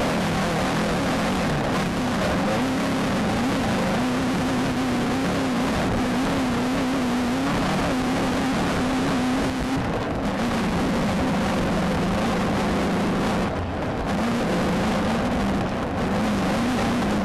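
Off-road desert race car heard from inside the cabin, its engine running hard with the pitch rising and falling as the throttle works, under a loud constant rush of wind, chassis and terrain noise. The noise briefly drops about ten and fourteen seconds in.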